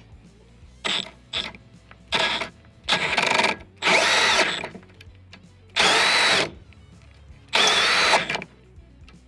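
Power drill driving a combination drill-and-tap bit into a steel plate, run in about seven trigger bursts: two brief blips, then longer half-second runs with pauses between them. The bit is cutting threads and binding hard enough to wrench the drill.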